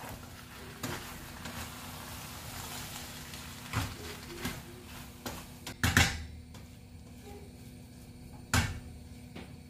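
Wooden spoon stirring thick minced-beef and vegetable filling in a cooking pot, with a few sharp knocks against the pot, the loudest about six seconds in and again near the end, over a faint steady hiss.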